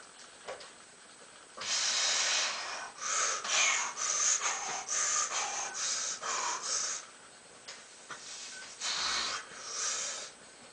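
A man breathing hard through strain during post-surgery shoulder rehab exercise. There is one long forced breath, then a quick run of short, sharp puffs, and two more heavy breaths near the end.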